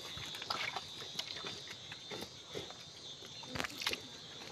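Scattered soft clicks and knocks from hands and a knife working on a raw mithun rib section, over a steady high insect buzz.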